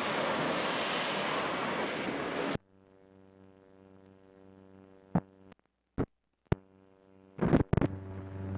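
A dense factory-machinery din cuts off abruptly under three seconds in. What remains is the faint hum of an old film's optical soundtrack running over the leader at a reel change, with a few sharp clicks and, near the end, a cluster of louder pops.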